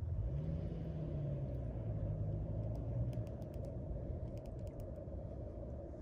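Low rumble of a distant engine with a steady low hum that drops a little in pitch about a second and a half in.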